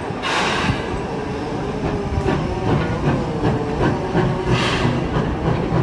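Steam locomotive moving slowly: two sharp bursts of steam, one just after the start and one near the end, over a steady low rumble with light knocks and clanks from the running gear and rails.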